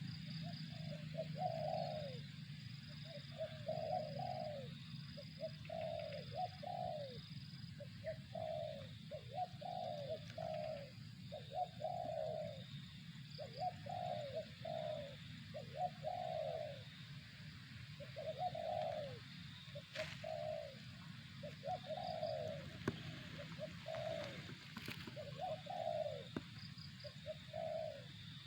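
Spotted dove (tekukur) cooing, a phrase of short low coos, each falling in pitch, repeated about once a second without a break.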